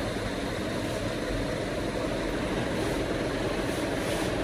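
Steady mechanical drone with even level throughout, with faint rustling of cotton fabric near the end as a pillowcase is handled.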